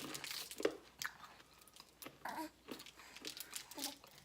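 Crunchy candy-coated peanuts being bitten and chewed, with irregular crunches.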